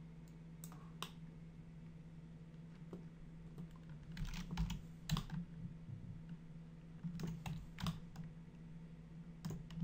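Irregular computer mouse and keyboard clicks, a few at a time, over a steady low hum.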